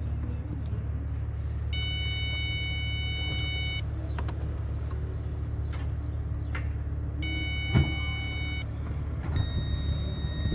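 A steady low hum, with two electronic tones, each holding for about two seconds, a few seconds apart, and another steady tone coming in near the end.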